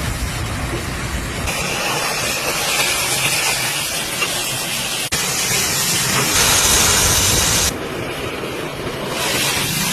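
Oxy-fuel cutting torch jet hissing steadily as it cuts through steel, its level and brightness jumping suddenly several times.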